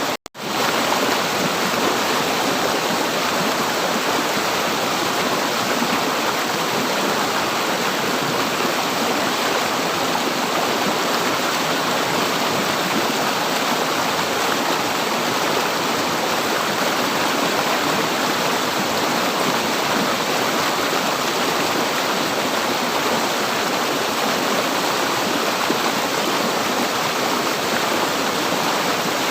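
River water flowing steadily, a dense, even rushing with no let-up, apart from a momentary cut-out just after the start.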